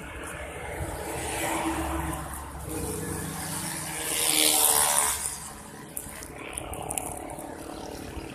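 Road traffic along a city street, with one motor vehicle passing close by: it swells to its loudest about four to five seconds in and then fades.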